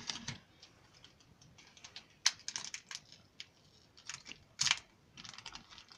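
Light, scattered clicks and taps of fingers handling and tapping a smartphone, with one sharper click about two seconds in and quicker clicking near the end.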